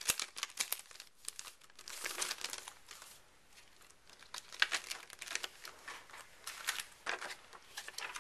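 Clear plastic stamp sheet crinkling and crackling in the hands as a clear stamp is peeled off its backing, in several irregular bursts.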